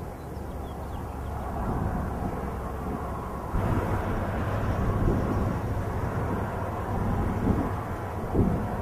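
Wind buffeting the microphone in a dust storm: a low rushing rumble that steps up louder about three and a half seconds in, with a few stronger gusts near the end.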